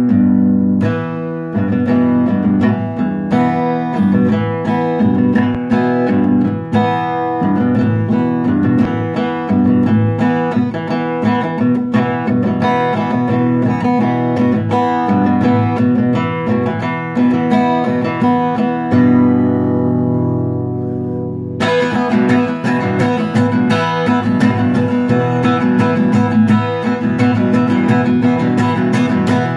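Acoustic guitar strummed in a steady rhythm. About nineteen seconds in, a chord is left to ring and fade, and the strumming starts again about two seconds later.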